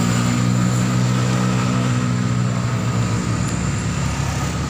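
Diesel engine of a large bus passing close by on the uphill climb, a loud steady drone that fades over the last second or so.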